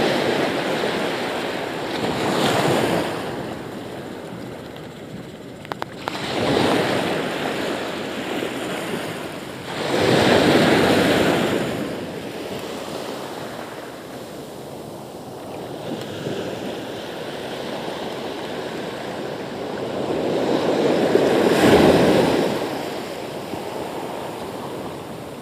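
Small waves breaking and washing up the shore, the surf swelling four times, with wind on the microphone between the waves.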